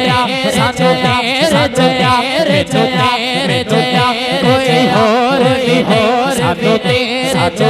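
Male naat reciter singing a long, ornamented melismatic line with no clear words into a microphone, over a steady low rhythmic beat of about four falling thumps a second.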